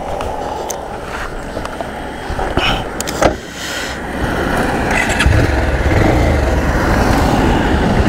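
A few handling clicks, then about five seconds in a Bajaj Pulsar 220 motorcycle's engine comes on and runs at a low, steady idle.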